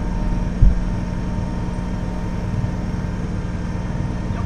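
Kubota BX23S tractor's three-cylinder diesel engine running steadily, with a single heavy thump about half a second in.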